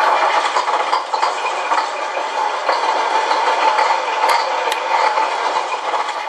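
Beier SFR-1 sound controller playing a sampled Kenworth W900 diesel truck engine idling through its small speaker, with no deep bass. Two faint clicks come about halfway through. Near the end the engine sound starts to die away as it is switched off from the radio.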